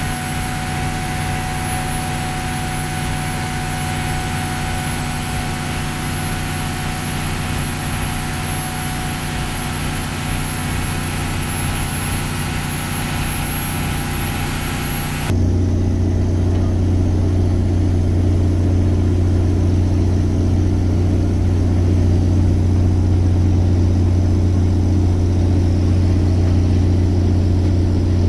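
Fishing boat's engine running steadily: a constant low drone with hiss and a few steady whining tones. About halfway through the sound changes abruptly to a louder, deeper drone with the hiss gone.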